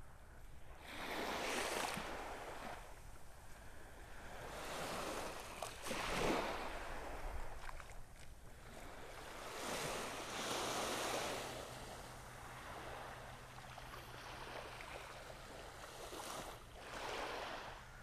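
Surf on a beach: waves break and wash up the shore four times, each rising and falling away, over a steady hiss of water.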